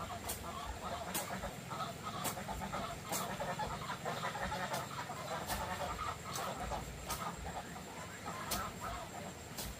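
Poultry clucking and chattering in a dense, continuous patter, with sharp separate ticks about once a second.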